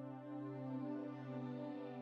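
Soft ambient synthesizer music with sustained, held chords over a steady low tone.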